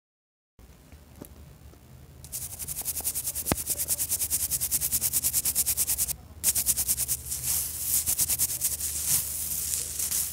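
Small brush scrubbing a printed circuit board clean, fast back-and-forth strokes about ten a second, in two runs with a brief pause about six seconds in. The scrubbing starts about two seconds in.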